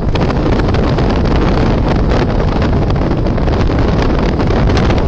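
Strong wind buffeting the microphone on the open deck of a ship under sail: a loud, steady rumble with gusts.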